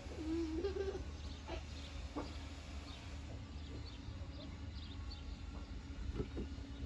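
Garden ambience: scattered bird chirps over a steady low hum, with a young child's brief wordless vocalising in the first second.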